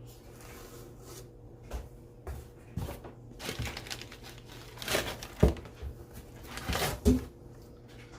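Paper crinkling and rustling in irregular bursts as books and papers are handled, with two short knocks about halfway and near the end.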